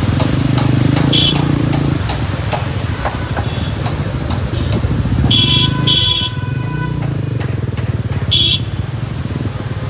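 Street traffic with an engine running steadily, broken by four short shrill beeps: one about a second in, two close together around the middle and one later.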